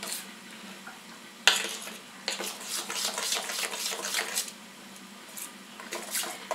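Metal spoon stirring thick dhokla batter in a stainless steel bowl, with irregular scraping and clinking against the bowl's sides and a sharper knock about one and a half seconds in.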